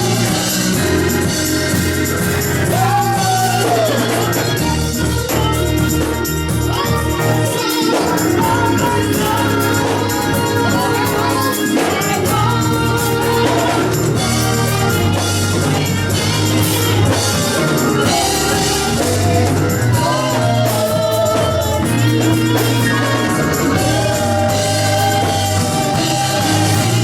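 Gospel music: voices singing with vibrato over an instrumental backing with steady bass notes.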